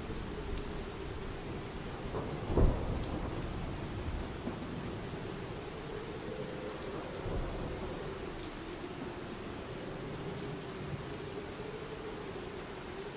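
Steady rainfall with thunder, one low rumble peaking sharply about two and a half seconds in.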